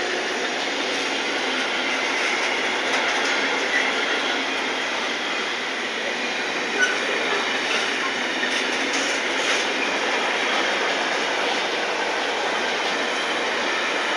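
Freight wagons of an intermodal container train rolling past close by: a steady rush of wheel and rail noise, with a few faint sharp clicks from the wheels on the track.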